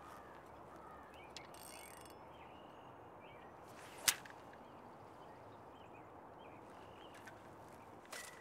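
A fishing rod whipping through the air on a cast, one sharp swish about four seconds in, over a quiet steady outdoor background.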